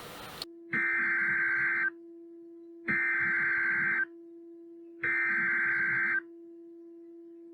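Emergency Alert System SAME header: three bursts of digital data squeal, each about a second long with a second's gap between them, over a steady low hum. This is the coded header that opens a broadcast severe thunderstorm warning.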